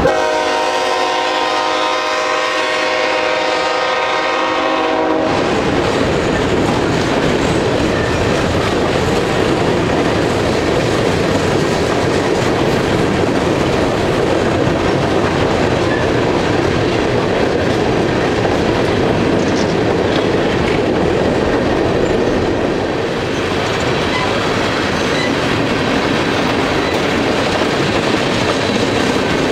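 A locomotive horn sounds and cuts off about five seconds in. The rest is the steady rumble and clatter of a long string of empty coal cars rolling past on the rails.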